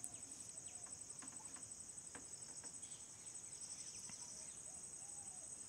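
Faint, steady high-pitched insect trill, like crickets, pulsing rapidly without a break. Faint scattered taps and small squeaks of a marker on a whiteboard sound over it.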